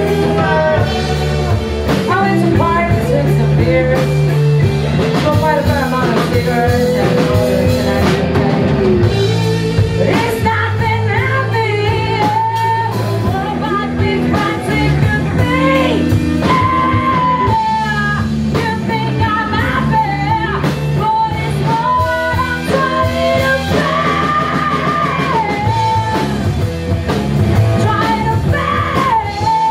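Three-piece rock band playing live: electric guitar, bass guitar and drum kit, with a lead vocal sung over it.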